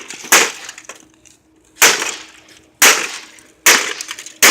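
Five heavy blows about a second apart smashing an air conditioner's casing, each strike cracking and splintering its parts with a loud crash that dies away quickly.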